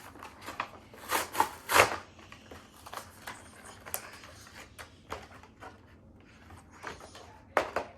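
Action-figure packaging being handled: a series of short crinkles, scrapes and clicks of plastic and cardboard, loudest in a cluster about a second or two in and again near the end.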